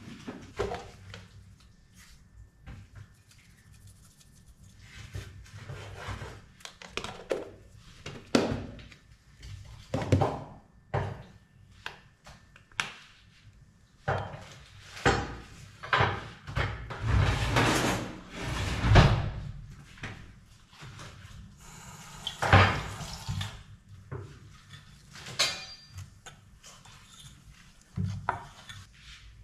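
Kitchen handling sounds: scattered knocks and clatter of a container and utensils around an aluminium pot, with a louder stretch of scraping and rattling about halfway through. Near the end a wooden spoon stirs the cassava mixture in the pot.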